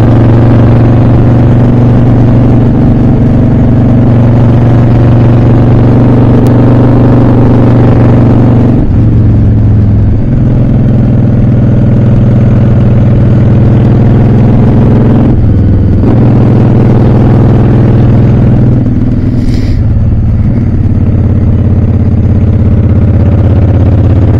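Honda Shadow VLX 600's V-twin engine running under way at road speed, a loud steady drone. Its pitch eases off and picks up again a few times, dropping lower near the end, as the throttle is worked through the curves.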